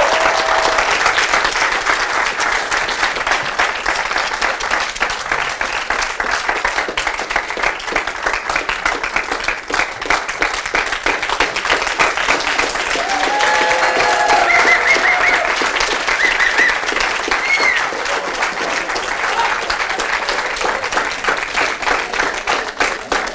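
Audience applauding at length, thinning into more separate claps near the end.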